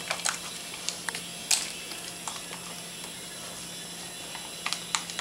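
Scattered crinkles and clicks of clear plastic packaging and tubing being handled, over a steady low hum.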